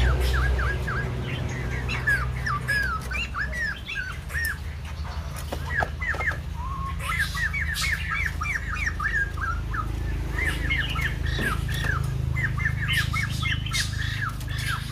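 White-crested laughingthrush singing: runs of quick, short, hooked notes, several a second, broken by brief pauses, over a low steady hum.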